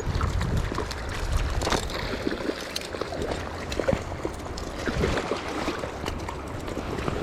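Rushing river water, a steady hiss, with scattered short clicks through it.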